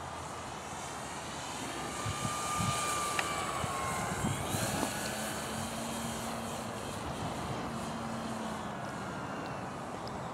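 Radio-controlled model airplane's motor passing overhead, its note rising in loudness and then falling in pitch as it goes by, loudest about three seconds in.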